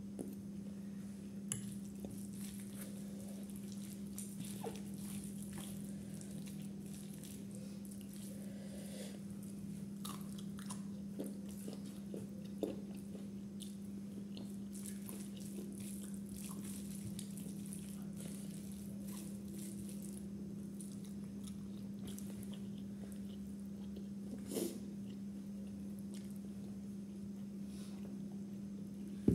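A person eating chicken biryani by hand: quiet chewing and the rustle of fingers working rice on a plate, with occasional light clicks and one louder knock near the end. A steady low hum runs underneath.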